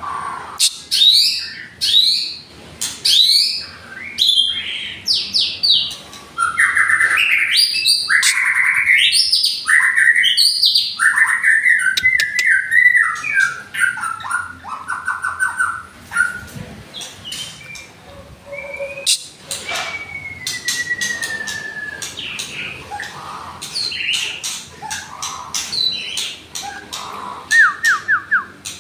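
Caged white-rumped shamas singing in a song duel: loud, varied whistled phrases, fast runs of repeated rising notes and sharp clicks, with one long, slowly falling whistle a little past the middle.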